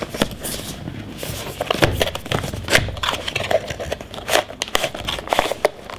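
Hands opening a cardboard retail box and sliding the inner tray out of its sleeve: irregular scraping and rustling of card with scattered sharp clicks.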